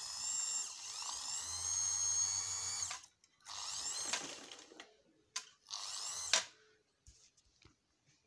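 Electric sewing machine motor running in spurts as the foot pedal is pressed and released: a whine whose pitch rises as it speeds up, one run of about three seconds followed by shorter ones, stopping about six and a half seconds in. The motor's drive belt is loose and slipping on the pulley.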